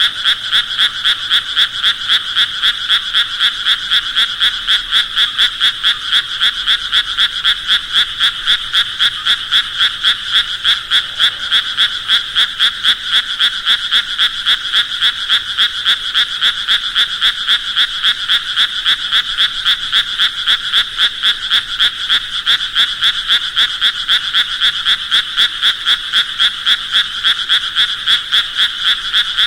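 A frog calling over and over in a high-pitched, rapid series of evenly spaced calls, about three a second, keeping the same pitch and pace throughout.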